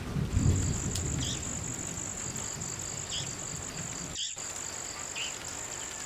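Insects trilling in a steady, rapidly pulsing high buzz, with a few short high chirps over it. A low rumble fades out in the first second, and the sound briefly cuts out just after four seconds.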